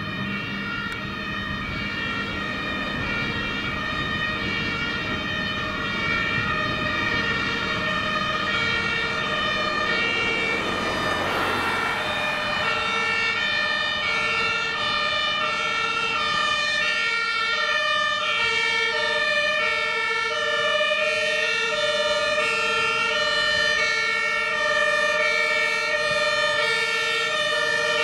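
Two-tone sirens of a Mercedes-Benz Antos fire engine and a Mercedes-Benz Vito fire-brigade van on an emergency run, several horns alternating high and low notes and overlapping. Road and engine noise runs beneath, with a passing vehicle's noise swelling and fading around ten to twelve seconds in. The sirens grow slightly louder toward the end.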